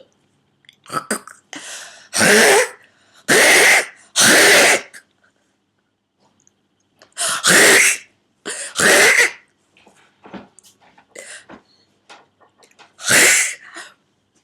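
A woman's involuntary throat-clearing spasms from whooping cough, forced through swollen, tight vocal cords: a sound she likens to a dog trying to clear an air bubble from its nasal passages. There are six loud bursts, three in quick succession, two more a few seconds later and a last one near the end, with fainter throat noises between them.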